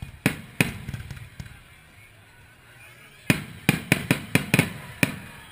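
Aerial fireworks shells bursting overhead: two sharp bangs just after the start, each with a low rumbling tail, then a quick run of about seven bangs about three seconds in.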